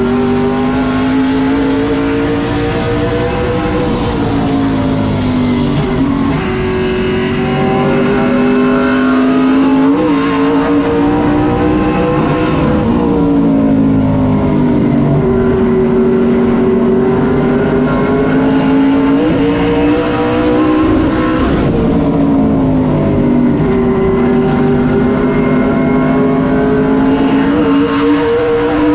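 Sportsman late model race car's engine at racing speed, heard from inside the cockpit. Its pitch climbs, dips briefly, then climbs again several times as the car accelerates along the straights and slows for the turns.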